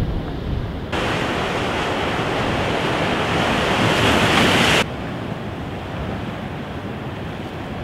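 Sea surf breaking and foaming over shoreline rocks, loud from about a second in, building, then cutting off suddenly a few seconds later. Either side of it, a lower wash of surf with wind rumbling on the microphone.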